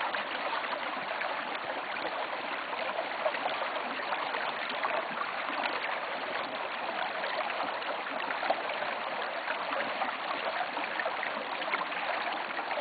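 Small stream babbling over rocks between snow and ice, a steady rushing burble.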